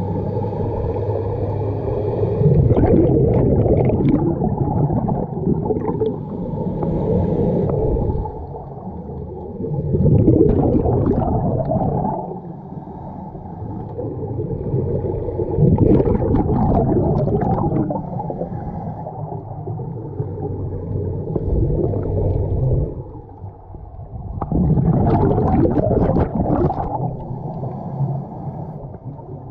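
Scuba diver breathing underwater through a regulator: loud bubbling exhalations come every few seconds, with quieter stretches between them.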